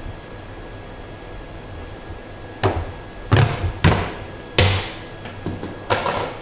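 Snap-on plastic bucket lid being pried off. About five sharp cracks and knocks come over a few seconds as the rim lets go and the lid comes away.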